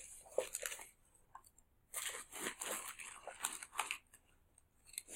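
Plastic snack wrapper crinkling as it is handled, in irregular rustles near the start and again through the middle.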